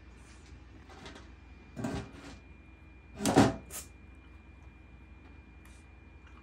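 Shiba Inu eating dry kibble from a square metal tin: a few short rattling knocks of muzzle and food against the tin, the loudest about three and a half seconds in.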